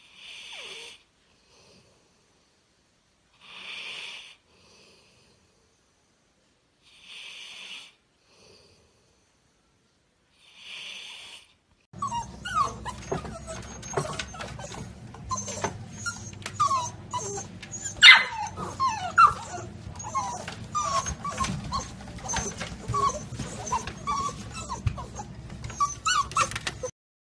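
A sleeping Labrador snoring in slow breaths, about one every three and a half seconds. About twelve seconds in, a litter of chocolate Labrador puppies starts whimpering and yipping in quick overlapping cries, with one loud high yelp about halfway through.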